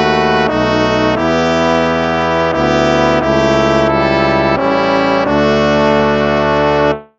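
Instrumental hymn played by brass, trombones and trumpets, in slow held chords that change every second or so. The music cuts off abruptly just before the end.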